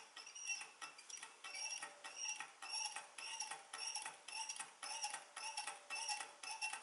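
Low-temperature-difference Stirling engine with a brass flywheel running on a glass of hot water, its piston and linkage clicking in an even rhythm about three times a second, each click with a brief high ring.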